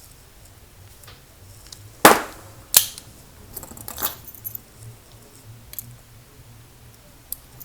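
Metal clacks from a padlock and its keys being handled: two sharp clacks about two seconds in, the first ringing briefly, then lighter clicking and jingling.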